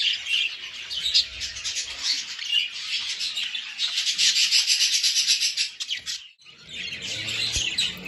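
Budgerigars chattering, a dense high twittering of many chirps at once. It drops out briefly about six seconds in, then resumes.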